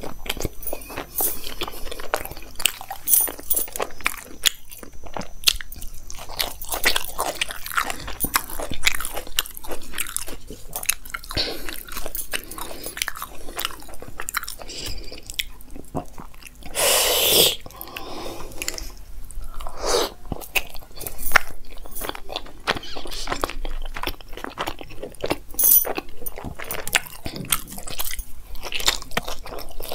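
A person chewing mouthfuls of aloo paratha with masala dahi: continual wet smacking and soft crunching, with one louder brief rush of noise a little past halfway.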